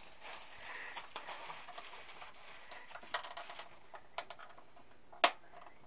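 Computer parts and their packaging being handled: soft rustling and light scattered clicks, with one sharp click about five seconds in.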